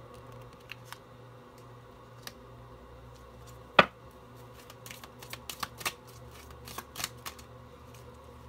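Tarot cards being handled on a tabletop: scattered light clicks and taps of card on card. One sharp snap comes a little under four seconds in, then quick runs of clicks later on.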